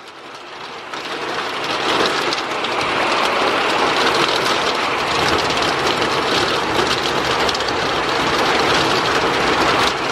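Heavy storm rain coming down hard, swelling over about two seconds into a steady loud rush of dense pattering impacts.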